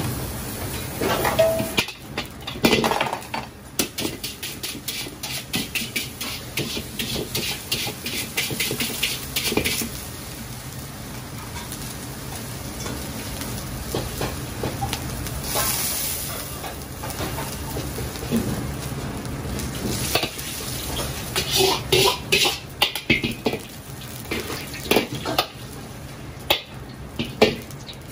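An iron wok being worked over a restaurant gas burner, over the burner's steady rush and a sizzle. For several seconds there is a run of quick scraping strokes, about four a second; later come scattered clanks of metal on metal.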